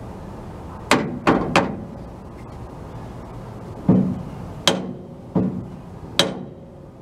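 Hammer tapping on the steel pintle hitch: three quick strikes about a second in, then four more spaced just under a second apart from about four seconds in, each with a short metallic ring.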